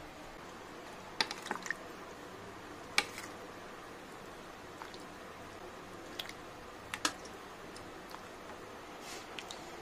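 A metal ladle clinking and tapping against a steel pot and serving bowl as chicken curry is scooped out, in a handful of scattered sharp taps over a faint steady background hum.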